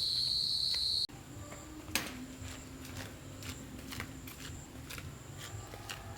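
Insects chirring in a steady high drone that cuts off suddenly about a second in. After it come scattered light clicks and knocks, one sharper than the rest, over a faint low hum.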